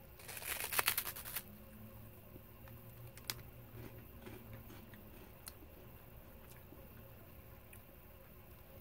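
Crunching bite into an Umaibo puffed corn stick: a quick cluster of crisp crackles over about the first second, then faint, scattered crunches of chewing.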